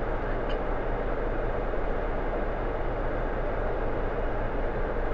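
Car running, heard from inside the vehicle: a steady low noise of engine and cabin.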